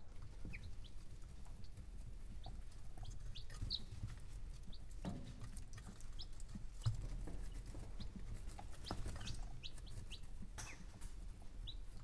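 Baby poultry (chicks, ducklings and a turkey poult) giving short, soft peeps now and then, with light scratchy taps of their feet and beaks, over a steady low rumble of wind and a heater.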